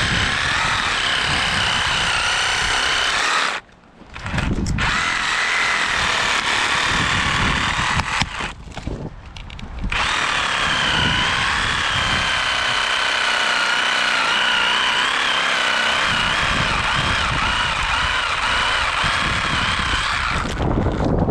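Cordless reciprocating saw with a Diablo carbide-tipped pruning blade cutting through a tree branch, its motor whining steadily. It stops briefly twice and restarts, the pitch wavering as the blade works through the wood, then cuts off just before the end.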